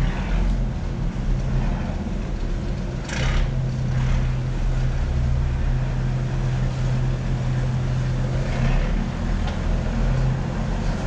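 Boat engine running with a steady low hum, and a brief rush of noise about three seconds in.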